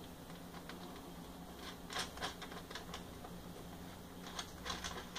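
Light clicks and taps of small parts being handled by hand inside a cassette deck's metal chassis, coming in two quick clusters, about two seconds in and again near the end.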